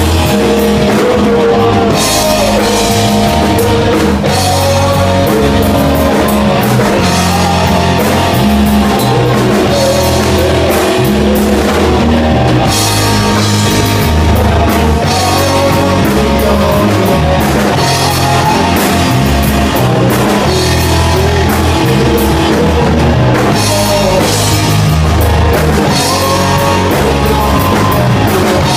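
Loud live rock band playing: a drum kit with electric guitar, in a heavy, metal-leaning style.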